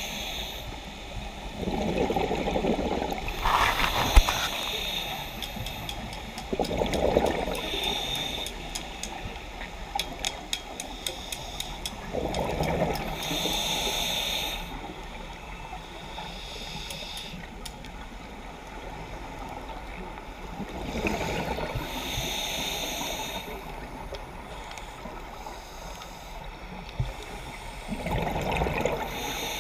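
Scuba diver breathing through a regulator underwater: a burst of gurgling exhaled bubbles, then a hiss of inhaled air, repeating about five times. A run of fast faint clicks comes near the middle.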